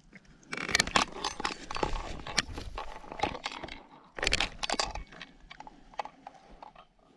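Close rustling and crackling of clothing and hands moving, with scattered sharp clicks, as a freshly landed cutthroat trout is lifted and handled. The sound comes in irregular flurries, loudest about a second in and again a little past the middle, quieter near the end.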